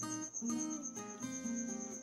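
Quiet background music played on plucked acoustic guitar, its notes changing every half second or so.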